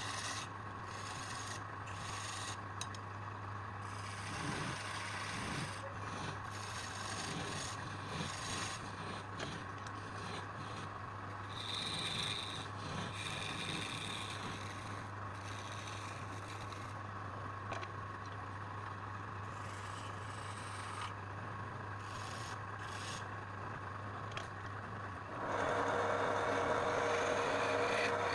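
A tool rasping and rubbing against wood in repeated short strokes over a steady low hum. Near the end a louder, steady motor-driven tool starts running.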